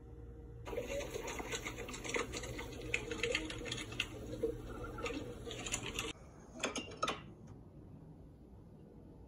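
Pot of spicy stew bubbling under a glass lid, a dense crackle of rapid small pops. It stops suddenly about six seconds in, followed by two short noises.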